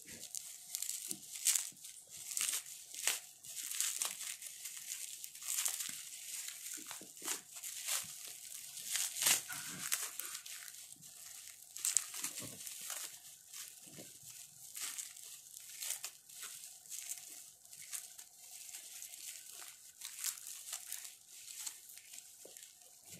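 Plastic bubble wrap crinkling and crackling as hands unwrap it, in dense, irregular crackles.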